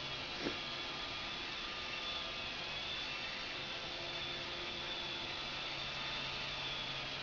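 Robot vacuum cleaner running with a steady whirring hum. A single short knock comes about half a second in.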